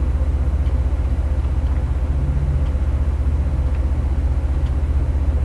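A motor running steadily: a low, even drone with a fast regular pulse and a few faint ticks over it.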